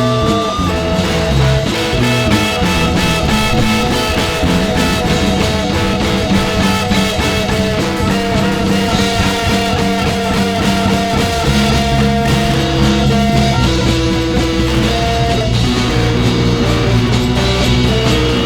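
Rock music from a band playing guitar, bass and drums, built on long held notes. A heavier bass line comes in about eleven seconds in.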